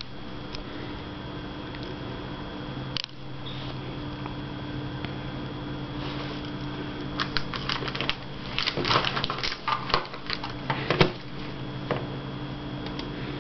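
A steady low electrical hum with a faint high whine. From about seven seconds in comes a scatter of sharp clicks and knocks.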